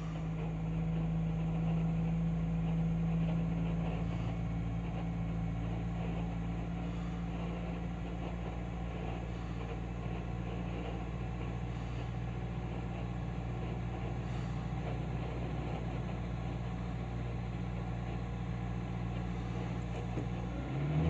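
2003 Toyota Celica GT's 1ZZ 1.8-litre four-cylinder idling just after a cold start, with a steady drone. This is the odd noise that comes only on first start-up and goes away once the car is driven; to the owner it sounds like something low on fluid, though every fluid checked was full.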